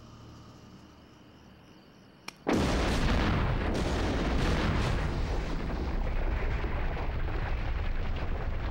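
Movie explosion: a sudden loud blast about two and a half seconds in, after faint low music, followed by a long, heavy rumble of fire with crackle that carries on undiminished.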